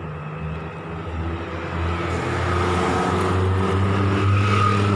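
Street traffic: a car drives past close by, its engine and tyre noise growing louder over the last three seconds.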